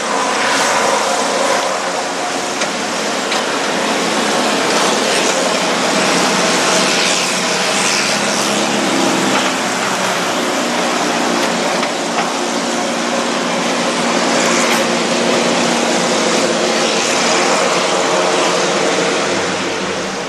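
Twin Honeywell turboprop engines of a Dornier 228-212 NG commuter plane running steadily as the aircraft taxis, a dense engine and propeller noise with several steady tones through it.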